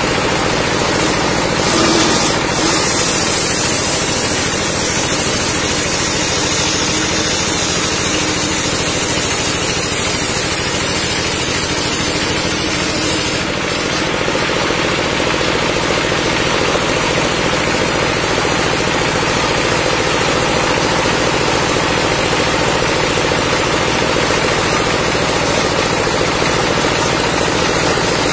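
Circular saw table running steadily on its motor while the blade rips lengthwise through a squared timber beam. A bright, hissing cutting sound lasts from about two seconds in until about halfway through, then stops while the saw keeps running.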